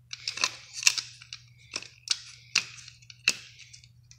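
Several sharp, irregularly spaced clicks and knocks, about seven over four seconds, over a faint steady low hum.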